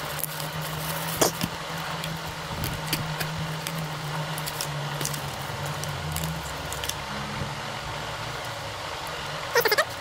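Plastic bag crinkling and a small cardboard box being handled and opened, with many short sharp clicks, over a steady low hum.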